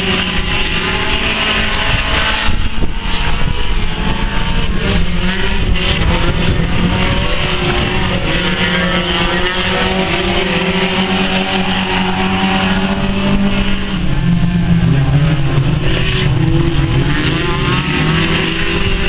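A pack of small saloon race cars lapping a clay speedway oval, several engines running and revving at once, their pitches overlapping and rising and falling as the cars accelerate and lift through the bends.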